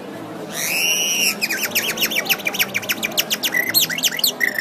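A bird calling: a drawn-out rising-and-falling note, then a fast run of sweeping chirps, about five or six a second, ending on a short steady whistle.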